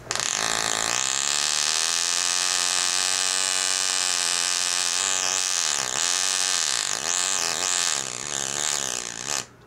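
Bernzomatic propane torch with HHO fed into its air holes, burning hard with a loud hiss and a humming tone that wavers and dips in pitch several times. It stops suddenly near the end.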